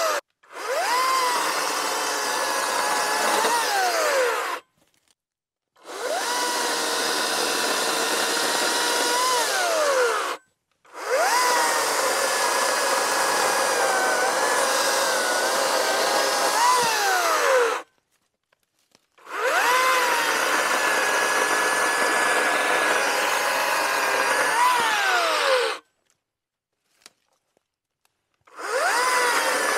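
Atlas 80V brushless 18-inch cordless chainsaw cutting through dead tree limbs in five separate runs with silent gaps between them. In each run the electric motor's whine rises as it spins up, sags and wavers under load in the cut, then briefly climbs and falls away as the trigger is released.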